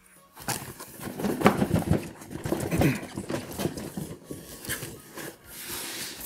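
Corrugated cardboard shipping box being lifted, tipped and shuffled on a table, its flaps scraping and rustling, with scattered knocks as it bumps down, while the tightly packed box inside refuses to slide out.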